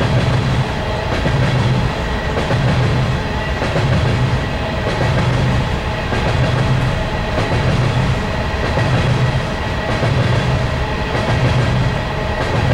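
Empty BNSF coal hopper cars of a unit coal train rolling past in a steady rumble, with a low pulse roughly once a second as the cars go by.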